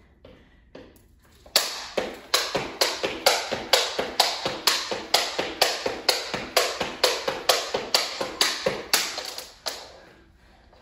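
Skipping rope on a wooden floor: the rope slapping and shoes landing in a steady rhythm of about three to four taps a second. It starts a second and a half in and stops near the end.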